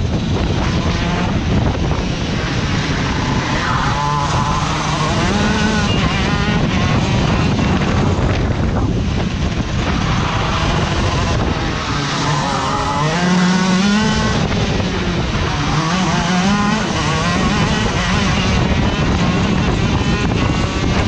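Racing kart engine heard onboard at full race pace, its note dropping and climbing again several times as the kart slows for corners and accelerates out of them, rising toward the end as it speeds up along a straight.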